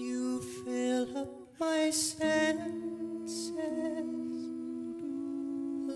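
Male a cappella group singing held chords without words, several voices in close harmony, shifting to a new chord every second or two, with a few short breathy hisses.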